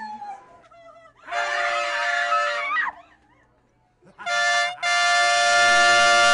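Loud blaring chords, reedy and horn-like. The first lasts about a second and a half, wavers, then sags in pitch as it dies away. After a short pause comes a brief blast, then a long steady blaring chord.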